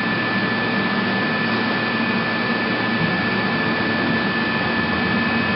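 AVIA FNE 50 N CNC tool milling machine running steadily: an even mechanical hum and hiss with a thin, steady high whine.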